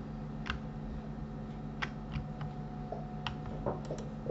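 Computer keyboard keys and mouse buttons clicking about eight times at uneven intervals, bunched toward the middle and end, over a steady low hum.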